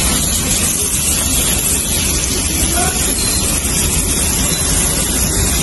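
Tap water running in a steady stream into a large aluminium stockpot, splashing onto beef bones, beef and chopped vegetables as the pot fills.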